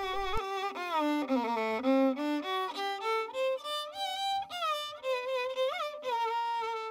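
Solo violin playing a melody as background music, sliding between notes with vibrato.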